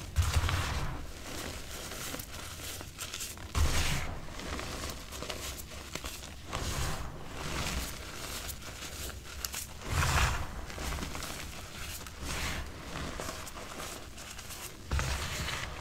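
Reformed gym chalk crunching and crumbling as hands squeeze and crush it, powder sifting between the fingers. Four louder crunches each carry a dull thud underneath.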